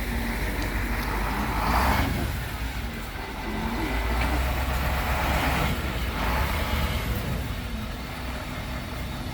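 Motor vehicle engines with a steady low rumble, swelling twice as traffic passes.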